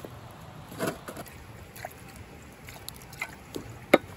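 Scattered small crackles and knocks over a low steady rumble, with one sharp click near the end: a wood fire crackling in a fire pit while things are handled on a camp table.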